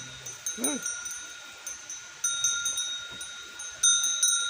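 Small metal bells ringing in irregular strikes, each with the same clear high ring. About half a second in there is one short bleat-like call.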